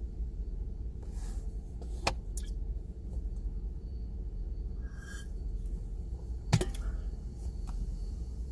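Steady low rumble with two sharp clicks, one about two seconds in and a louder one near the end, and a short faint tone between them.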